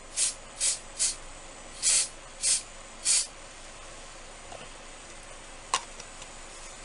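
Six quick spritzes from a spray bottle, short hissing bursts in two groups of three, then a single sharp click near the end.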